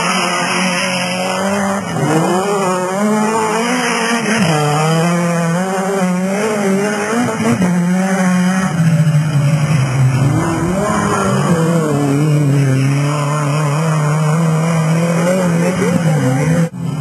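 Rally car engines revving hard on a dirt track, the engine note rising and falling again and again with each gear change and lift of the throttle. The sound cuts out briefly near the end.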